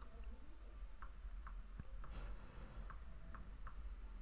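Faint, short clicks of computer input, about eight of them at roughly two a second, as moves are stepped back on a chess program's board.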